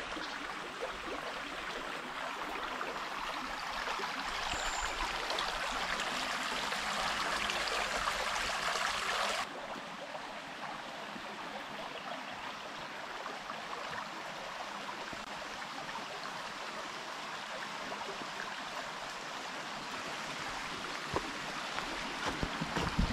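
The Pulsnitz river running: a steady rush of flowing water that drops abruptly to a quieter rush about nine and a half seconds in.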